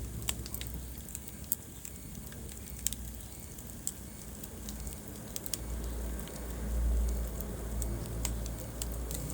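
Wood fire burning in a fireplace, crackling with sharp scattered pops over a low rumble of the flames, the rumble swelling about six seconds in.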